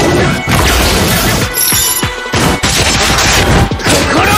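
Loud music mixed with a rapid run of anime sword-fight sound effects: slashes and crashing hits, packed closely together.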